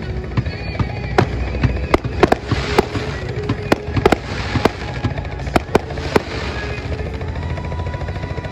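Aerial fireworks going off: a rapid, irregular series of sharp bangs for the first six seconds or so, some followed by crackling, over a steady low rumble.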